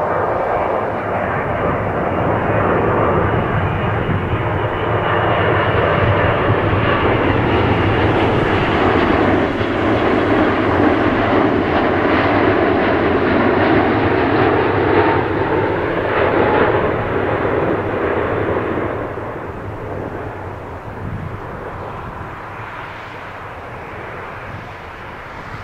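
Boeing 777 on final approach passing low overhead, its twin turbofan engines running at approach power: a loud, steady roar that builds, peaks midway, and fades over the last several seconds as the jet moves away.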